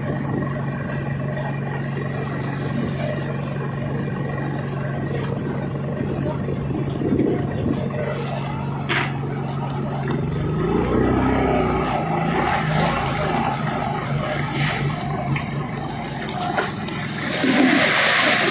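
Fishing boat's engine running steadily, its pitch shifting about ten seconds in. Near the end a loud burst of splashing comes as a shoal of small fish churns the water at the surface.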